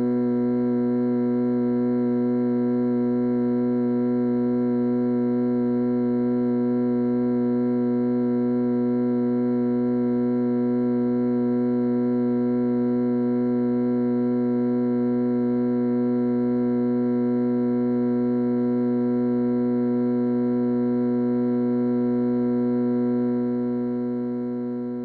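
Electric buzzer sounding one continuous, steady buzz that fades out near the end.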